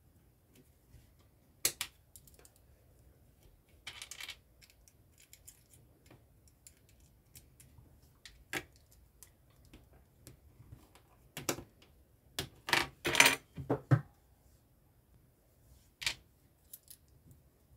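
Plastic LEGO bricks clicking and clattering as they are handled and pressed together, with scattered single clicks and a louder run of rattling clicks about two-thirds of the way through.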